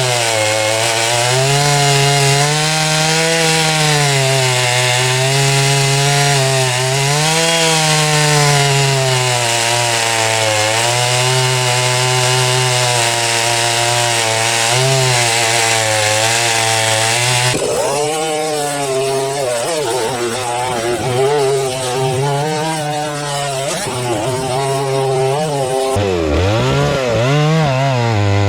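MS 660 clone two-stroke chainsaw with a 36-inch bullnose bar at full throttle, cutting through a log. Its pitch sags and recovers as the long bar loads up. Later on the pitch wavers up and down more widely.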